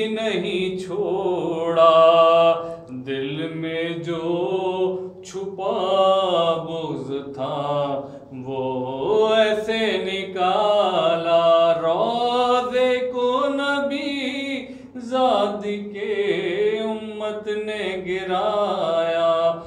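A solo male voice chants an Urdu noha (mourning lament) unaccompanied, in long, drawn-out sung lines broken by short pauses for breath.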